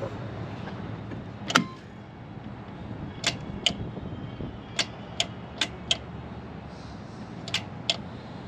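Turbine start cart failing to start: about nine sharp clicks from its start switches and relays over a steady low hum, with no starter spinning the turbine up. The starter is not engaging because the cart's 35% centrifugal switch is stuck open.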